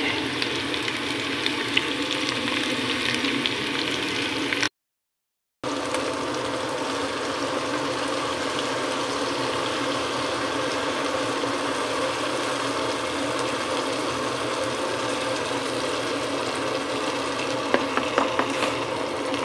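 Chicken pieces and mushrooms frying in a pan: a steady sizzle, broken by a short silent gap about five seconds in.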